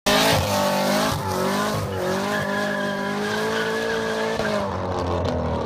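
Car doing a burnout: the engine held at high revs while the rear tyres spin and squeal, its pitch wavering up and down. It begins abruptly and starts to fade near the end.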